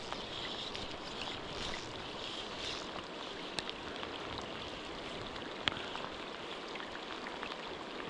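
River water flowing, a steady rushing hiss, with a few sharp ticks about three and a half and five and a half seconds in.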